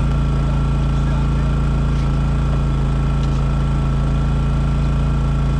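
An engine running steadily on a small boat: a constant low hum and rumble at an even level, with no change in speed.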